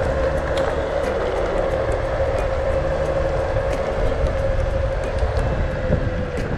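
Boosted Rev electric scooter running at full speed, around 24 mph: a steady motor whine over heavy wind and road rumble. The whine fades out about six seconds in as the scooter slows.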